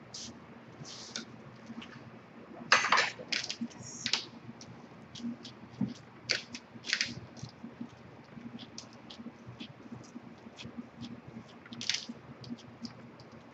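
A spoon scraping and clicking on a metal baking sheet and hands pressing a sticky oat mixture flat on baking paper: scattered short scrapes and clicks, the loudest about three seconds in, over a faint low hum.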